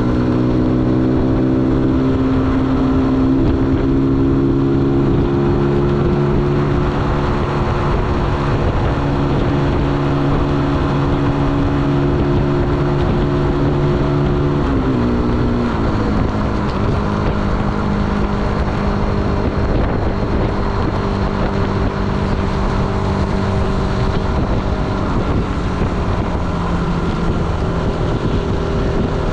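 Zontes U125's single-cylinder 125 cc engine running under steady throttle at road speed, with wind rush. About halfway through the engine note slides down and then holds at a lower pitch.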